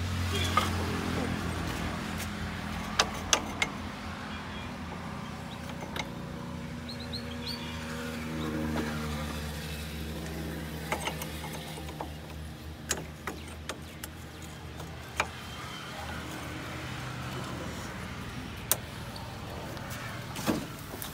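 John Deere tractor's diesel engine idling steadily, with sharp metal clinks and knocks from the rear linkage being handled: a quick cluster about three seconds in, then single ones every few seconds.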